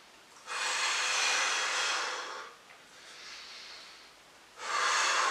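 A man breathing hard through slow ab crunches: a long, forceful breath out of about two seconds starting about half a second in, a much quieter breath in, then a second forceful breath out near the end.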